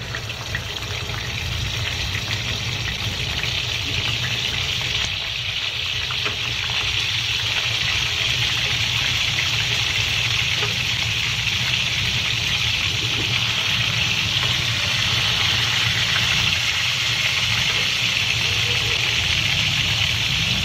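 Whole tilapia sizzling in a small pan of hot oil, just laid in. The steady sizzle swells over the first several seconds, with scattered small pops of spattering oil and a low hum underneath.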